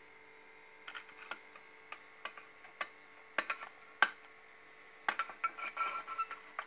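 Light metallic clicks and taps as the lit methylated-spirit burner tray and the metal rear scuttle are fitted under the boiler of a Mamod model steam traction engine, with a sharper knock about four seconds in and a quick run of clicks near the end.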